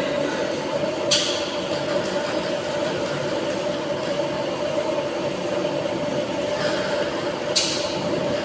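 Tilting-type air-jet bottle washing machine running with a steady mechanical hum, and two short sharp hisses of compressed air, about a second in and near the end.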